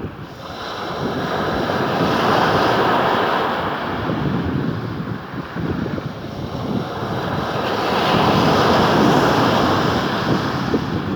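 Sea waves breaking and washing up the shore, swelling twice, about two seconds in and again near the end, with wind buffeting the microphone.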